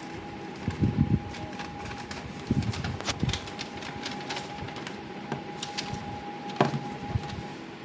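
Scattered light knocks, taps and handling noises, with a few sharp clicks, over a faint steady hum.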